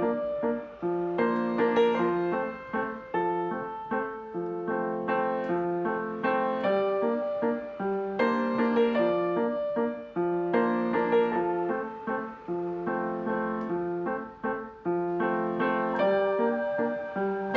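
Background music played on piano: a gentle melody of repeated notes over a steady accompaniment.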